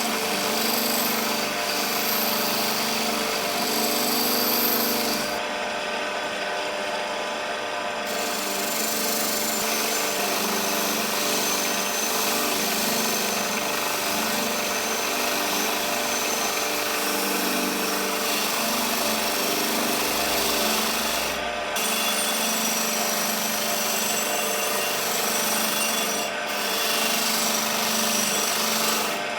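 Power tool running steadily with a constant motor hum while abrading the metal of a small rusty vise, with a few abrupt jumps in the sound.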